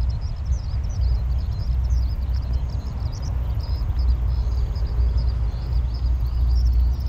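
Many small birds chirping high and continuously over a loud, steady low rumble.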